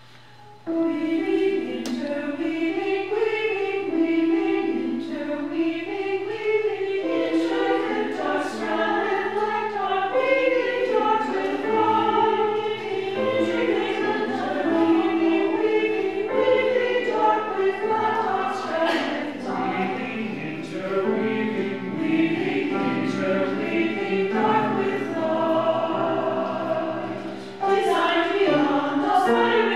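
Mixed SATB choir singing, the voices entering together suddenly under a second in and moving in overlapping parts. Near the end the sound drops briefly before the full choir comes back louder.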